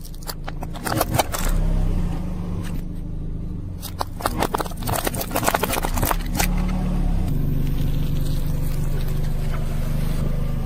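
A car tyre rolling slowly over plastic glasses and sunglasses, crushing them with clusters of sharp cracking and snapping, once near the start and again in the middle, over the car's steady low engine rumble. Near the end only the low rumble is left as the tyre presses onto soft ice lollies.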